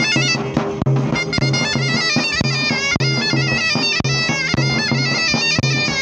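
Zurna and davul playing a lively Turkish folk tune. The zurna's shrill, reedy melody moves fast with quick ornaments, over steady davul strokes about twice a second.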